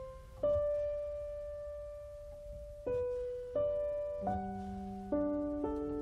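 Background music: slow, gentle solo piano, single notes and soft chords struck about once a second or less and left to ring and fade.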